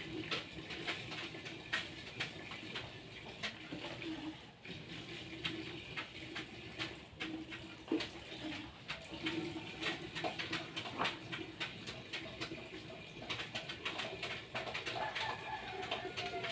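Pigeons cooing in a run of low, repeated coos, with scattered sharp clicks and taps.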